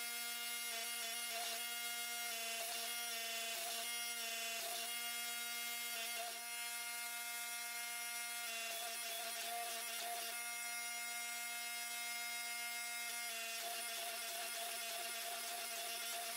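Hydraulic forging press running, its electric motor and pump giving a steady hum with a whine above it and no impacts.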